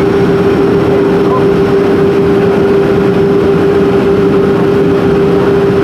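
Cabin noise inside a Boeing 737-400 while it taxis: the CFM56-3 turbofan engines at idle give a loud, steady rumble with one strong, steady hum running through it.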